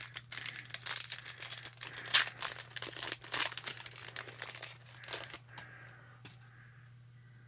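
Foil trading-card pack wrapper crinkling as it is torn open and handled, a dense rapid crackle that stops about five and a half seconds in. A steady low hum runs underneath.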